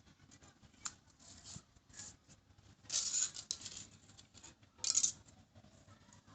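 Small plastic toy parts being handled and pressed together: scattered clicks and short rattling scrapes, the loudest about three seconds in and again about five seconds in.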